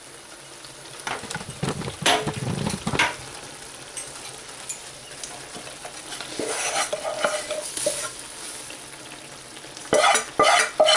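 Hot butter tadka of fried spices sizzling in a pan, with a metal spoon scraping and knocking against the pan a few times, most around a couple of seconds in and again near the end.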